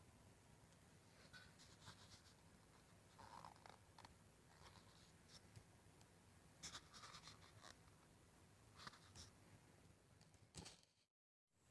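Near silence, with a few faint scratching and rustling sounds scattered through it, and a brief drop to dead silence near the end.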